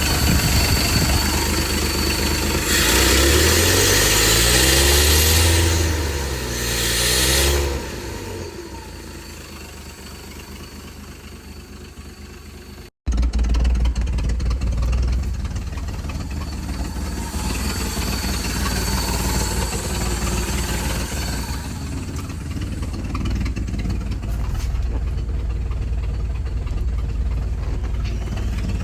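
Ford 300 straight-six engine running on a Briggs & Stratton lawnmower carburetor. It is revved up and down in sweeps a few seconds in, then runs steadily and quieter. After a sudden break about 13 seconds in, it runs steadily again with a stronger low rumble.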